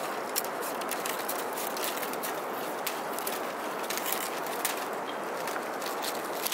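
Light, irregular clicks and rustles of split bamboo strips being woven into a basket, over a steady hiss.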